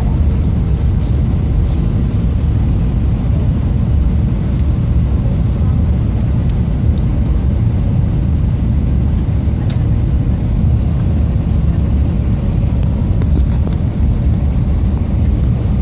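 Steady low rumble inside an airliner cabin during its descent: jet engine and airflow noise, with a few faint clicks.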